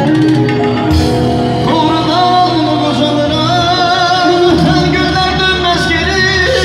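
A male vocalist sings a wavering, ornamented melody into a microphone over amplified live band music.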